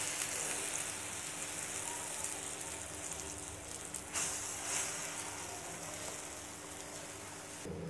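Egg and gram-flour omelette batter sizzling in a hot oiled pan: a steady frying hiss.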